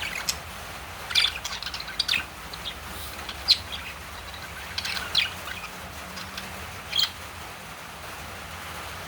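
Lovebirds chirping: short, high, sharp chirps every second or so, with a few louder ones about a second in, at three and a half seconds and at seven seconds.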